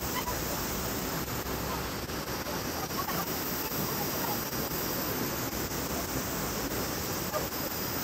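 Mountain stream rushing over boulders in a small cascade: a steady noise of running white water.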